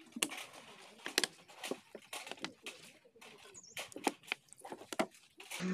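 Water poured from a plastic bottle into a small steel cup to rinse it, among irregular clinks and knocks of the cup and utensils being handled.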